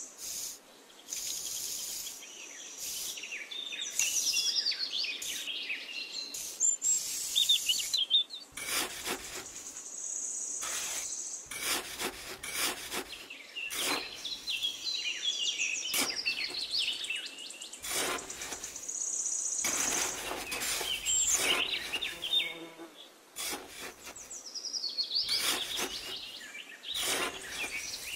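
Small hand trowel scraping and digging in damp sand in short, irregular strokes, with birds chirping and an insect's steady high buzz behind it.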